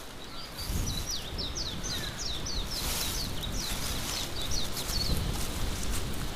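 A songbird singing a fast run of short, high notes, about four a second, that stops a little before the end, over a low rumble and brief rustles of outdoor ambience.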